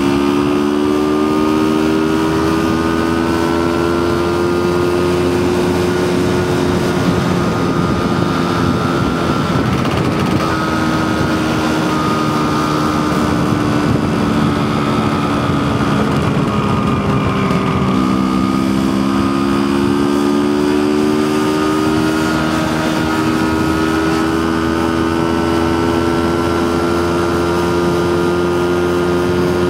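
Vespa scooter engine running under way, heard from the scooter itself with wind noise over it. Its pitch climbs as it speeds up, drops sharply about eighteen seconds in, then climbs again.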